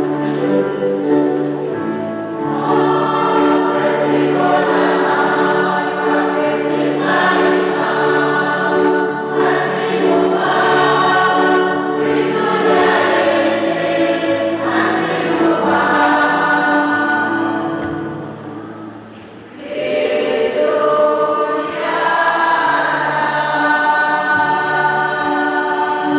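Choir singing a hymn in sustained chords, briefly falling away a little after halfway through before resuming.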